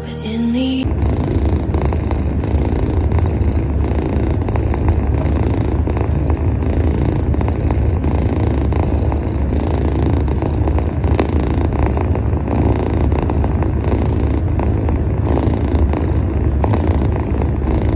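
Kitten purring steadily, a continuous low rumble.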